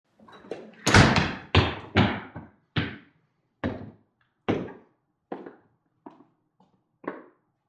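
Footsteps coming quickly down wooden stairs: about ten thudding steps under a second apart, the heaviest about a second in, growing lighter and fainter toward the end.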